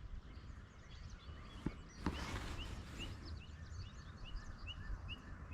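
Small birds calling in the background, one repeating a short rising chirp about twice a second through the second half, over a faint outdoor hiss with a brief rush of noise about two seconds in.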